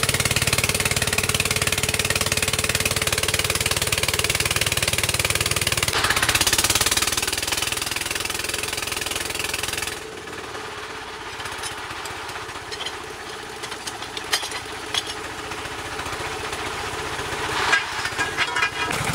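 D15 diesel engine of a water-well drilling rig running loudly with a fast, even knocking beat. About halfway through it cuts off abruptly to a quieter stretch with scattered knocks and clatter.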